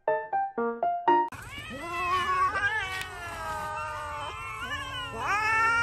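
A brief jingle of quick, plinky keyboard notes cuts off about a second in. Then a group of cats meows insistently, several calls overlapping and gliding in pitch, with a louder rising meow near the end: hungry cats begging to be fed.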